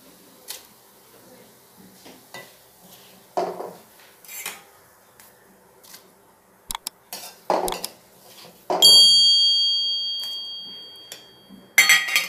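A spoon clinks and scrapes against a metal pressure cooker pot as a vegetable mixture is tipped in. About nine seconds in, one bright high ding rings out and fades over two or three seconds.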